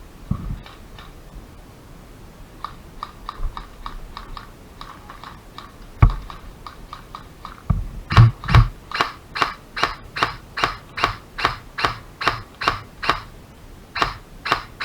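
Airsoft guns firing: a run of faint quick shots, then from about eight seconds in a louder, steady string of sharp single shots, roughly three a second. A few dull thumps of handling or movement come between.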